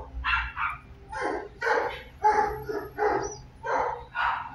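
Young Fila Brasileiro puppy barking repeatedly at a threatening decoy, about ten short barks at roughly two a second: defensive barking of a pup facing the threat despite its fear.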